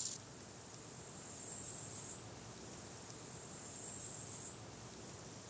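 Faint insect calls: two high, buzzing trills about a second long each, the first about a second and a half in and the second about three and a half seconds in, over a low steady hiss.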